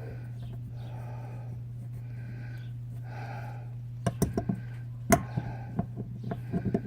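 A person breathing heavily in slow, regular breaths over a steady low hum. From about four seconds in comes a run of irregular sharp clicks and knocks as a drain bolt is worked back on with a socket wrench.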